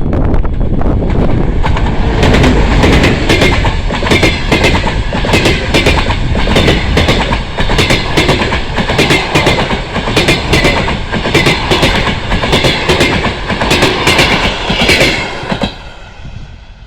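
Passenger train hauled by a TEP70 diesel locomotive passing at speed: a loud rumble with a rhythmic clickety-clack of the wheels striking the rail joints. The sound falls away suddenly about a second before the end as the last coach goes by.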